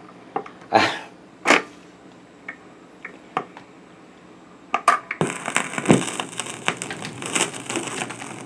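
Sears record changer cycling to the next record: its mechanism clunks twice, ticks a few times, and the stylus sets down with a click about five seconds in. Music from the record then begins through the speakers.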